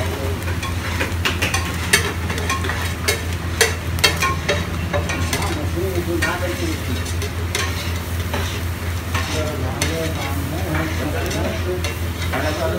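Metal spatula scraping and clacking on a flat steel griddle (tawa) as eggs and masala are chopped and mixed, over the sizzle of the frying eggs. The sharp clacks come thickest in the first four seconds, with a steady low hum underneath.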